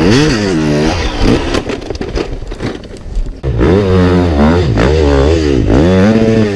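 Dirt bike engines revving hard under load on a steep hill climb, the pitch swinging up and down again and again as the throttle is worked. Quieter for a moment in the middle, then loud, repeated revving again in the second half.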